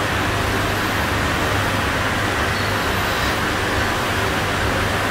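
Steady room noise: an even hiss with a low hum underneath, no other events.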